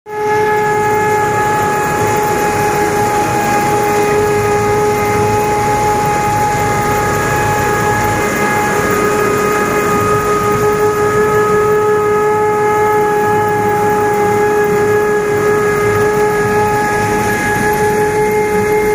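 Tractor-driven sunflower threshing machine running steadily: a constant pitched hum with several overtones over a dense noise of the working machinery.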